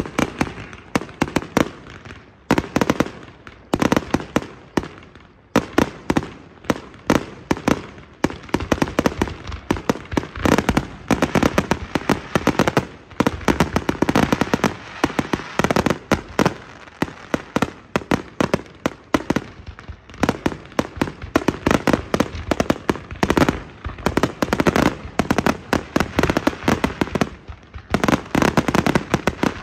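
Fireworks going off in rapid volleys of sharp bangs and crackles, many a second, with a few short lulls between volleys.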